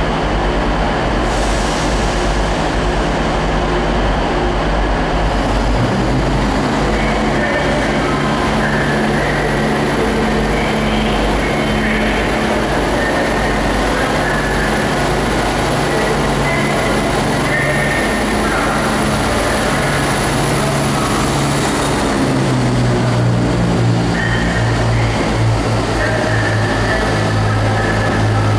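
Class 170 Turbostar diesel multiple unit pulling away under power and passing close by, its underfloor diesel engines running loud and steady. The engine note shifts as it gathers speed and is loudest as the cars go past near the end, with a thin high whine over much of the run.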